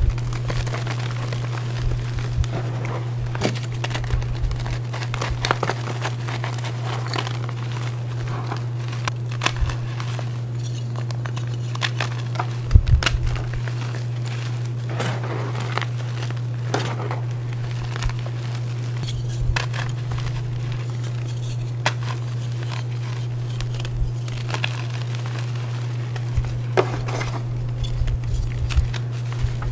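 Reformed gym chalk bars, hard and glassy, crushed in the hands: irregular crunches and crackles as the chalk snaps and crumbles into loose powder, with one heavier crunch about halfway through. A steady low hum runs underneath.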